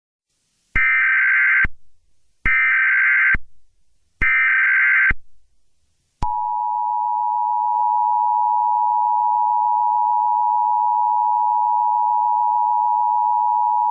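Emergency Alert System tones: three short bursts of buzzy SAME header data, about a second each, then, about six seconds in, the steady two-tone EAS attention signal (853 and 960 Hz) begins.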